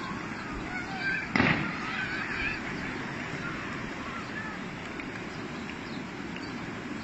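Steady rushing noise of a flash flood pouring down a wadi. Faint distant shouts and calls come through in the first couple of seconds, with one short louder burst about a second and a half in.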